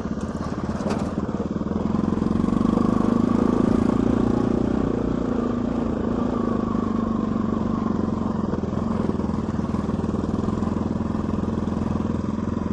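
Motorcycle engine running steadily under way, growing a little louder about two seconds in and then settling.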